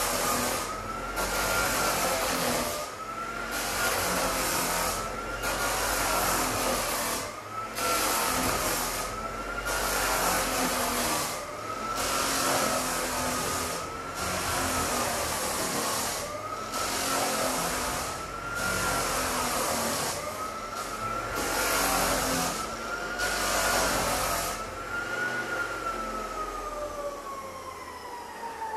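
Walk-behind drum floor sander running on old timber floorboards. Its motor whine rises and dips about every second and a half, in time with bursts of sanding hiss as the drum is pushed and pulled over the boards. Near the end the sanding hiss stops and the whine falls steadily.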